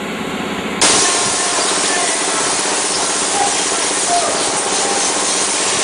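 A loud, steady mechanical rushing noise starts abruptly just under a second in and holds evenly, with faint steady tones under it.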